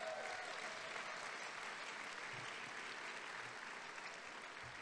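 Audience applause, an even clapping that slowly dies away.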